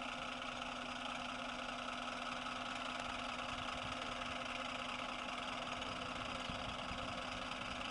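Steady mechanical hum with hiss, like an engine idling, even in level.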